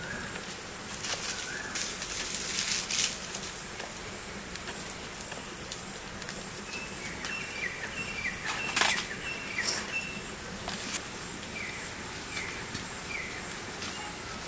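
Outdoor ambience: a few bursts of rustling noise in the first seconds, then birds chirping in a run of short, slightly falling high notes through the middle and later part, with a few sharp clicks.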